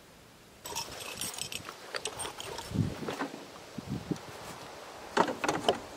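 Leather tool belt being hoisted onto a shoulder, the tools in its pouches clinking and rattling, with a few dull thumps. The sound begins about half a second in, and there is a louder jangle near the end.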